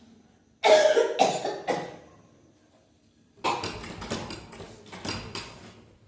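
A woman coughing hard from a bad cough: three coughs about a second in, then a longer fit of rapid coughs from about three and a half seconds.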